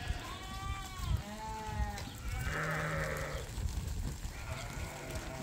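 Sheep in a moving flock bleating: two wavering bleats in the first two seconds, then hoarser bleats in the middle and near the end.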